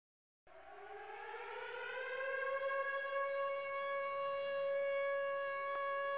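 A single siren-like tone that fades in after a moment of silence, glides upward over about two seconds, then holds one steady pitch.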